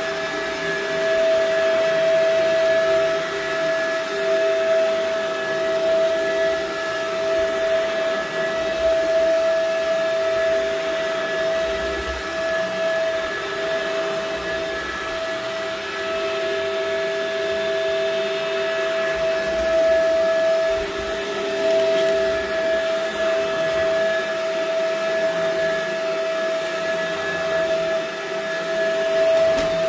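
Shark upright vacuum cleaner running steadily as it is pushed over an area rug, picking up dirt and dog hair, its motor giving a steady whine over the rush of suction.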